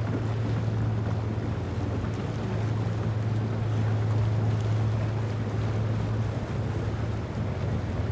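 Motorboat engines running steadily at low speed: a constant low hum with some water and wind noise over it.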